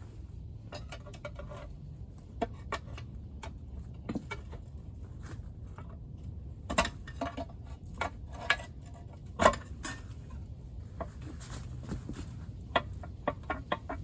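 Hand tools and metal engine parts clinking and knocking in an irregular run of sharp clicks as the front gear train cover of a Wisconsin V4 engine is worked loose, the loudest knocks about seven and nine and a half seconds in.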